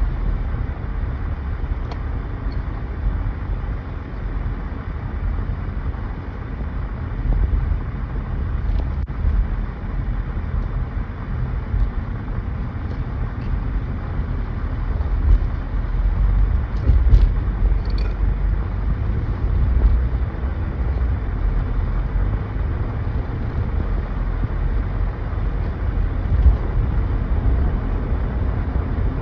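Car road noise heard from inside the cabin while driving: a steady low rumble of engine and tyres, with a few faint clicks about halfway through.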